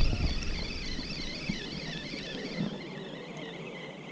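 Spinning reel being cranked: a thin gear whine that wavers up and down in pitch about twice a second with the turning handle, fading out about three seconds in.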